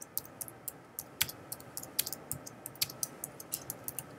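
Typing on a computer keyboard: a run of short key clicks at an uneven pace, a few per second.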